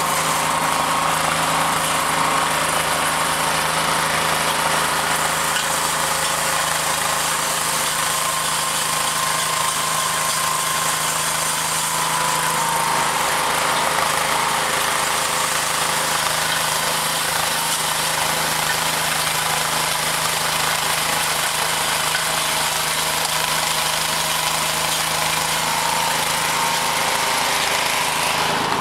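Walk-behind snowblower's gas engine running steadily under load as it clears snow, a constant drone with no change in pitch or level.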